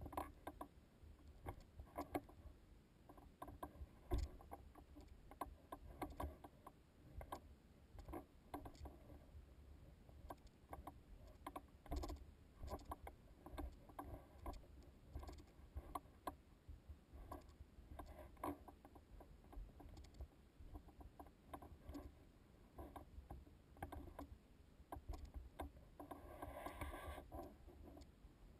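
Faint footsteps on rock and loose gravel while hiking a rocky trail: irregular crunches and taps about one or two a second, with a longer scuffing crunch near the end.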